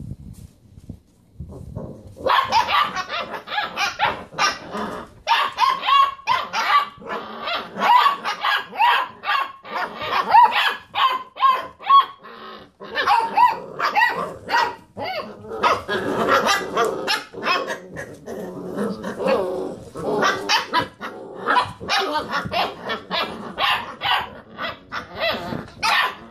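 Several basset hound puppies barking and rooing over one another, quick overlapping barks that start about two seconds in and keep going without a break.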